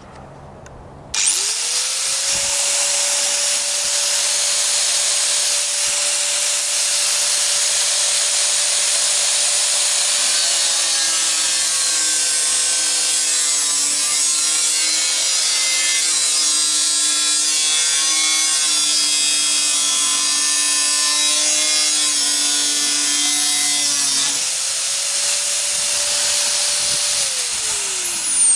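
Handheld electric power tool switched on and spinning up, running steadily with a loud hiss. Through the middle it drops slightly in pitch as if under load while it works, then speeds back up and winds down after being switched off near the end.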